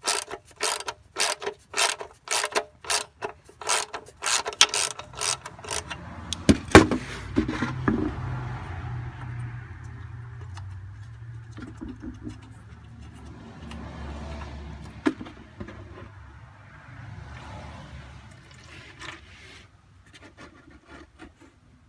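A socket ratchet clicks about three times a second as it spins the 19 mm oil drain plug loose. A loud clunk follows as the plug comes free, then a long steady rush of engine oil draining out into a coffee can.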